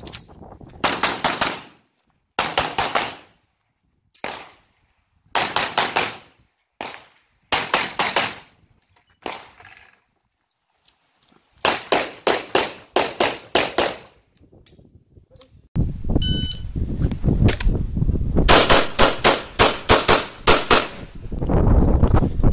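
Pistol shots fired in quick strings of two to several shots with short pauses between strings, as a shooter engages targets on a practical-shooting stage. From about sixteen seconds in there is a steady low rush underneath and the shots come in faster, closer-packed strings.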